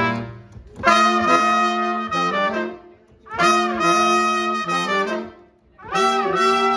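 Horn section playing three short phrases in harmony, each about two seconds long with brief breaks between them.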